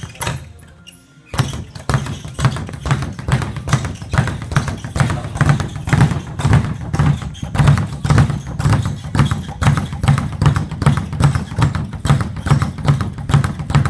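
Speed bag being punched in a fast, steady rhythm, a continuous run of thuds as the bag rebounds off its wooden platform, starting about a second in.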